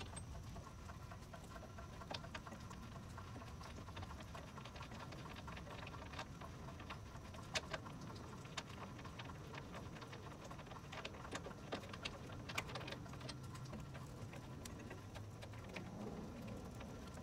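Faint, scattered light clicks and taps of hand work on a car's front wheel hub as its mounting bolts are taken out and the hub is handled, over a low steady hum.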